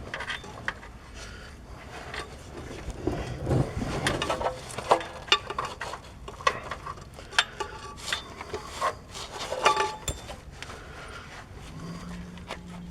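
Irregular metal clicks, clinks and scraping from hand work on a truck's transmission shift linkage, as a new shifter lever arm is worked into place.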